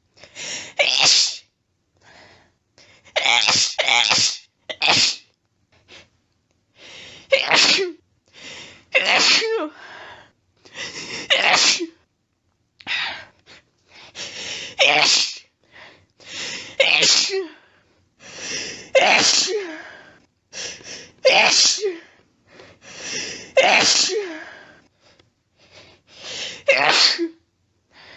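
A run of about a dozen sneezes, one roughly every two seconds. Each is a quieter breathy build-up followed by a loud, sharp burst.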